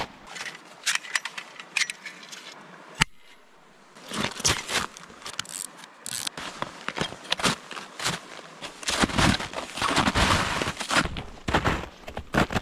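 Short sharp clicks and scrapes of Tubbs snowshoes' Boa bindings being fastened by gloved hands. From about two-thirds of the way through, snowshoe footsteps crunch steadily through snow.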